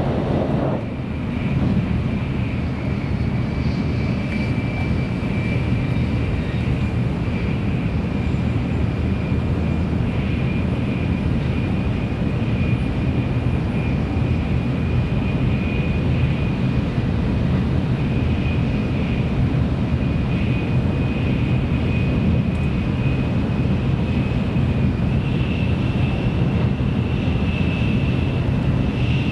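An N700S Shinkansen running, heard from inside the passenger car: a steady low rumble and rush with a thin high whine that slowly rises in pitch.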